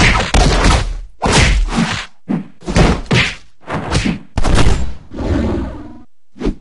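Cartoon fight sound effects: a rapid string of punch and kick impacts, whacks and thuds one after another, about eight hits in all. About five seconds in comes a longer, softer rushing sound before one last hit.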